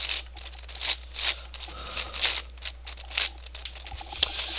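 Yuxin 11x11x11 puzzle cube's plastic layers being turned by hand: irregular clicking and scraping strokes, about two or three a second.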